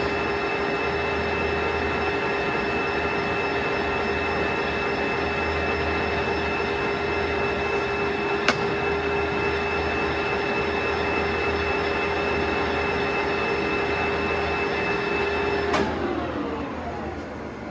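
Clausing Colchester 21-inch engine lathe running under power, a steady gear whine from its geared headstock and feed drive, with a single click about halfway. Near the end a clunk comes as it is shut off, and the whine falls in pitch as the machine winds down.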